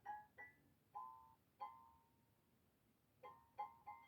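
Faint background music: a sparse run of single soft notes, each fading away, with a pause of about a second and a half in the middle.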